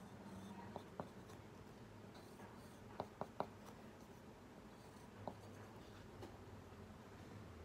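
Pencil drawing faintly on paper, with a few sharp clicks, three of them in quick succession about three seconds in.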